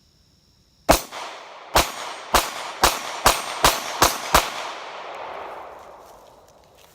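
Eight shots from a Glock 43 9mm pistol: one shot, a pause, then seven more fired in quick succession, about two a second and speeding up, with a long echo dying away for a couple of seconds after the last.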